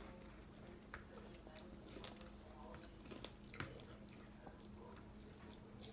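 Faint chewing of a mouthful of berries, with a few small sharp clicks, over a low steady hum.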